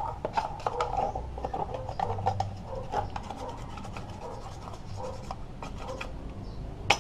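A metal tool scraping caked dirt off a metal motorcycle engine part: irregular scratching strokes, busiest in the first few seconds and thinning out after.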